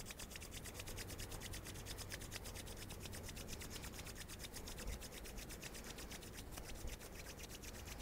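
Two palms rubbed briskly together in quick, even strokes, a steady dry rasping, to warm the hands by friction.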